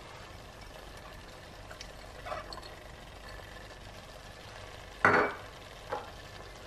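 Kitchenware being handled at a cooking pan: a soft clink about two seconds in, then a sharp knock about five seconds in and a lighter one just after, over a faint steady background.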